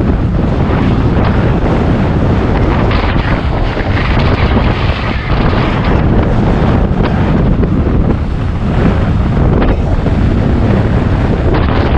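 Loud, steady rush of wind across the microphone of a camera carried on a moving road bicycle.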